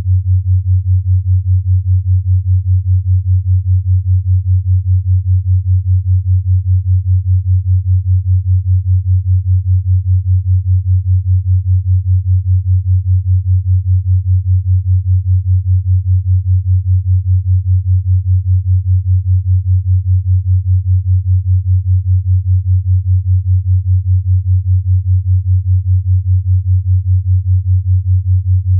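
A 5 Hz binaural beat: a steady pure low tone near 100 Hz that pulses evenly about five times a second, as two slightly detuned tones beat against each other.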